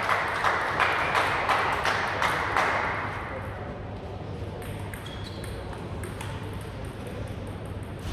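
Voices and sharp claps from a small crowd right after a table tennis point, fading away about three seconds in. After that it is quieter, with a few light pings of a table tennis ball.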